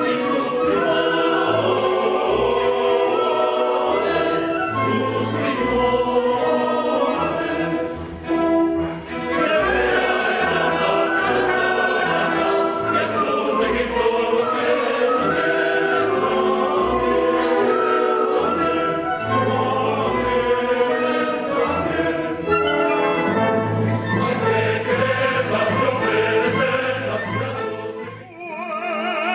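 Orchestra and chorus performing a minuet from a zarzuela, with a brief dip about eight seconds in, fading out near the end.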